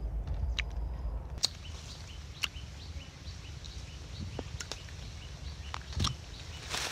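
Outdoor farm ambience: a low rumble of wind on the microphone, a faint high chirping repeated a few times a second, and a few sharp clicks.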